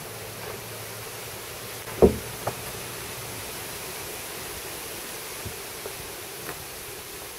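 Steady outdoor hiss with one loud thump about two seconds in, followed half a second later by a lighter knock, and a few faint ticks later on.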